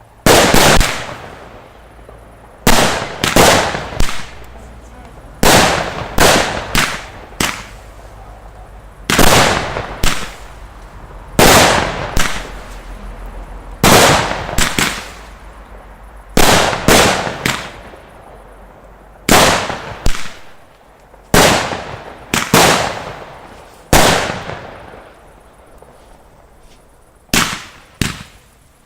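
Fireworks display: aerial fireworks bursting one after another with loud sharp bangs every one to three seconds, some in quick pairs, each bang followed by a fading tail.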